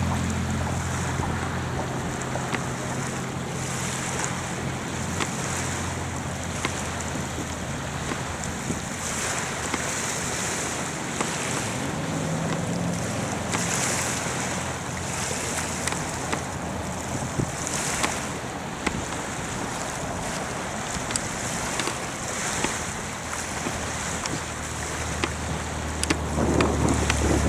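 Distant roar of a Falcon 9 rocket's first-stage engines during ascent: a steady rumbling noise, with scattered sharp crackles through it.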